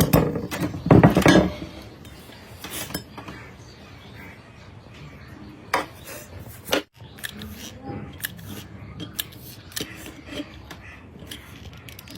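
Clattering and clicking of hard objects being handled, with a louder burst of clatter about a second in and a few sharp clicks later.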